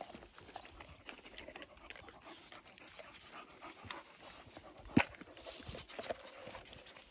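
Cane Corso puppies sniffing and scuffling about at close range, with scattered small clicks and rustles and one sharp knock about five seconds in.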